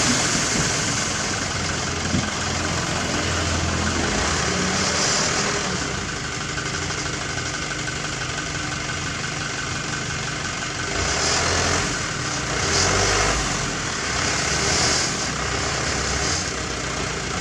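Diesel engines of heavy road-construction machinery running steadily, with a few swells in level about two-thirds of the way through.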